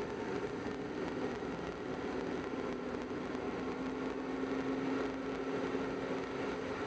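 Car engine and tyre noise heard from inside a car driving at low speed: a steady hum that grows a little stronger in the middle.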